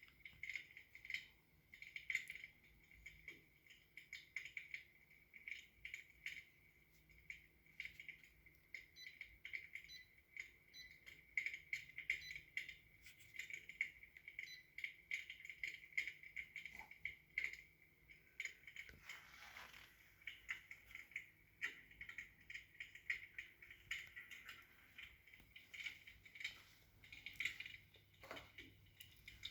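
Recorded wood-fire crackling played by the built-in sound effect of a Sapphire 60-inch electric fireplace firebox: faint, irregular crackles and pops with no real logs burning.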